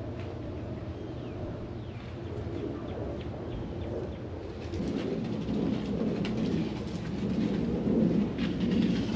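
Birds calling, with short chirps in the first few seconds, over a low rumbling noise that grows louder about five seconds in.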